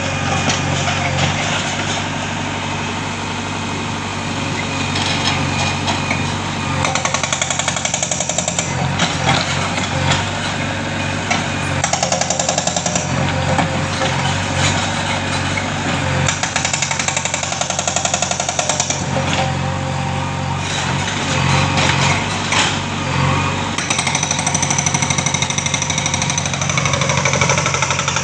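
Hydraulic rock breaker on a JCB backhoe hammering hard rock in repeated bursts of rapid blows, over the steady drone of the machine's diesel engine.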